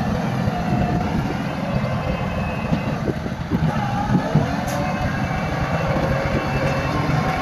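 Heavy diesel earthmoving machinery running: a steady low engine rumble with a few short clanks about halfway through.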